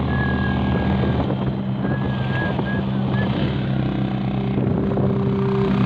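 Motorcycle engine running at a steady road speed, with wind and road noise from riding.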